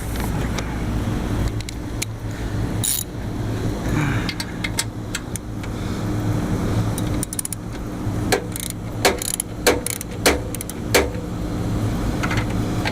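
Hand tools clinking on metal: a wrench and socket being worked on the rooftop AC unit's motor bolts, with a string of sharp metallic clicks in the second half. Under it runs a steady low machinery hum.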